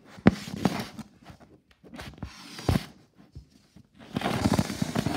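Handling noise: a sharp knock just after the start, another near the middle, then about a second of rustling and shuffling near the end as the handheld camera is moved.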